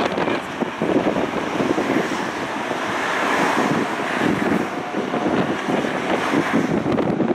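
Jet engines of a Boeing 767-300 airliner rolling out on the runway just after touchdown: a steady rushing noise, mixed with wind buffeting the microphone.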